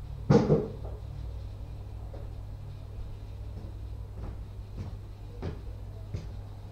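A single loud knock near the start, something being shut, then light footsteps on a tiled floor approaching, over a steady low hum.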